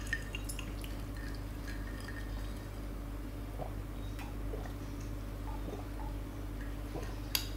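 Quiet sipping and swallowing of an iced drink from glass mugs and through a straw, with faint clicks of ice and glass. A single sharp click near the end.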